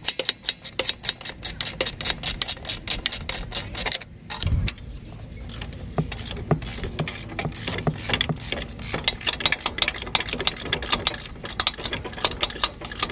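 Ratcheting wrench clicking rapidly, about six clicks a second, as lock nuts are run down on the dozer blade's carriage bolts. The clicking stops about four seconds in with a low thump, then starts again and runs on.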